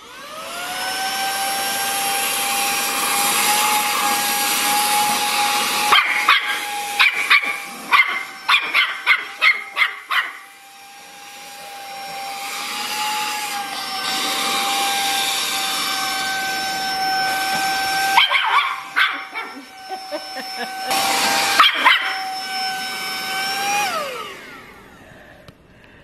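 Saker 3-in-1 cordless handheld mini vacuum with a crevice tool running: its motor whine rises as it spins up at the start, holds steady, and falls away as it is switched off near the end. A puppy barks over it, in a quick run of barks about a quarter of the way in and a few more times later.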